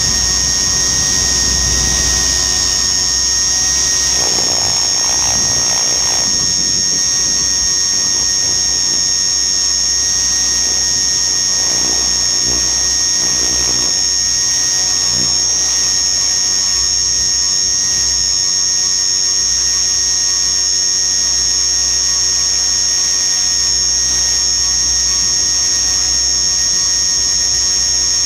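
RC helicopter's motor and rotor running steadily, heard from its onboard camera as a loud, constant high-pitched whine. Wind rumbles on the microphone, most heavily in the first couple of seconds.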